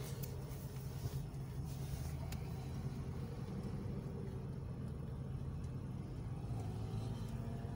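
Car engine running, a steady low rumble heard from inside the cabin.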